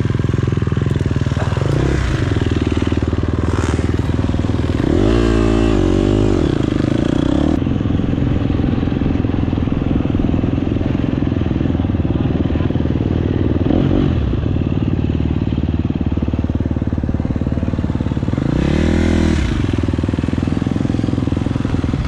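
Dirt bike engine running steadily, revving up and back down twice: once about five seconds in and again late on.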